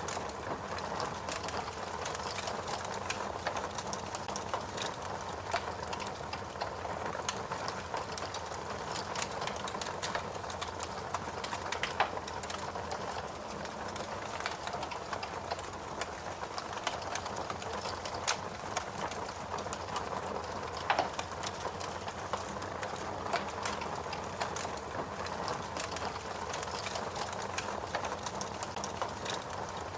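Fire crackling, a constant run of small pops and snaps with a few louder snaps, about twelve seconds in and again about twenty-one seconds in.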